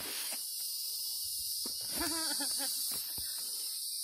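Steady high-pitched drone of an insect chorus, with a short wavering voice-like sound about halfway through and a couple of light knocks.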